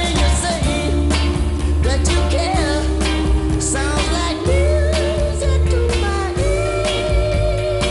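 A mid-1960s Motown soul record playing: sung vocals with vibrato over a band with a heavy bass line.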